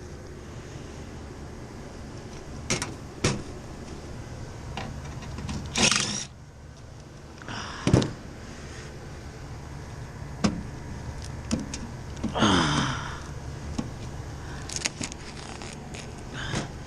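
Hand work on the panel of an iced-over condensing unit: scattered clicks and scrapes with a few sharp knocks, the loudest about 8 seconds in, over a steady low hum.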